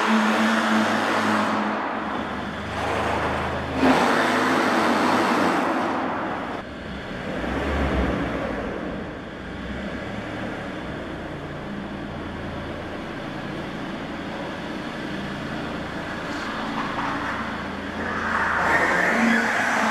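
Hyundai Sonata taxi driving slowly through an underground parking garage, its engine and tyres running steadily on the smooth floor. The sound is loud at first, drops back through the middle, and grows louder again near the end as the car passes close.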